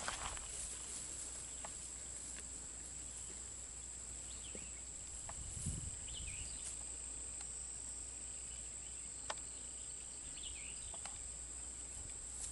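Steady high-pitched insect buzz, from crickets or similar. A few short bird chirps come in between, with scattered faint clicks and a low thump a little before the middle.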